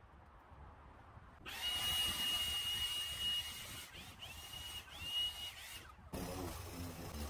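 A power tool's motor starts suddenly with a high, steady whine. Its pitch dips and comes back up several times as it is eased off and revved again. It cuts off abruptly, and a lower, engine-like drone takes over near the end.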